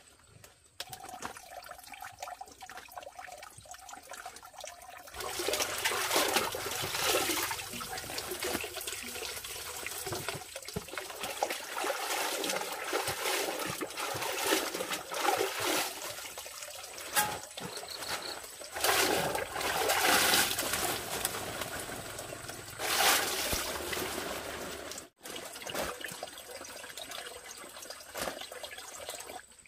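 Water splashing and trickling in uneven surges, faint at first and louder from about five seconds in.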